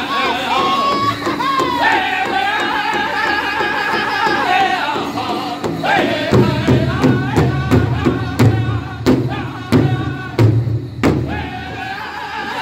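Powwow drum group beating a large hide drum with padded sticks and singing a chicken dance song together in high voices. About six seconds in, the drum strikes grow heavy and loud while the singing thins, then they ease off shortly before the end.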